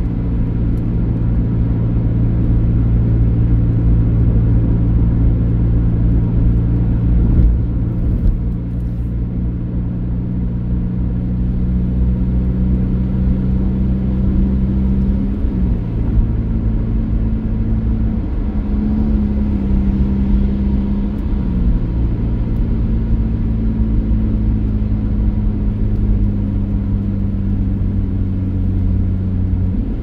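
A motor vehicle's engine running steadily under a low road rumble. The engine's pitch shifts about halfway through and changes again twice over the next few seconds as the speed or gear changes.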